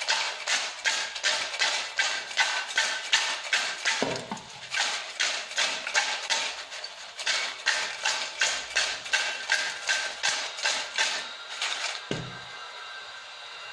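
Crisp fried potato chips rattling and crunching against a stainless steel bowl as it is shaken and tossed to mix in salt and red chilli powder, about three shakes a second. The dry, crackly rattle shows how crisp the chips are. The shaking stops with a knock about twelve seconds in.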